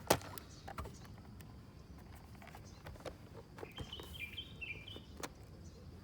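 Clicks and knocks of a plastic laptop being handled and turned over, with one sharp knock right at the start. A bird chirps a few times near the middle.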